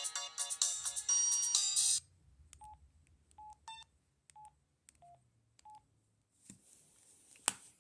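Samsung SCH-U410 cell phone playing a polyphonic ringtone melody, which cuts off abruptly about two seconds in. Then come about five short single-pitch beeps from the phone's keypad, less than a second apart, and a sharp click near the end.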